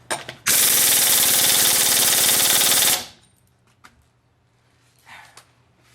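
Impact wrench hammering in one loud, continuous burst of about two and a half seconds, starting about half a second in; a few faint tool clinks follow near the end.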